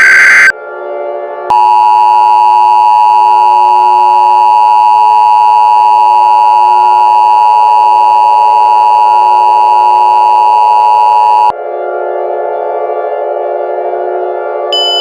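Emergency Alert System attention signal: the steady two-tone EAS alert holds for about ten seconds and cuts off abruptly. Before it, the last burst of the screeching SAME header data ends. After it, a quieter steady droning tone continues, and a new high tone starts near the end.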